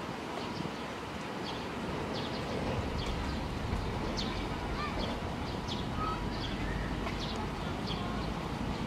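Small birds chirping in short, high notes scattered irregularly, over a steady low rumble that grows a little louder about a second and a half in.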